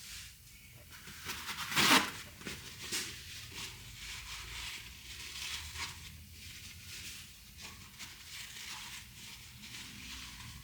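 Hands working on a truck's front hub assembly: rustling and scraping handling noises, with one louder short rustle or scrape about two seconds in.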